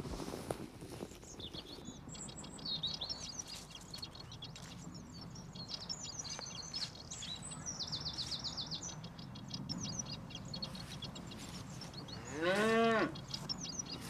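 Small birds chirping, with a quick trill partway through, then one loud moo about half a second long that rises and falls in pitch near the end.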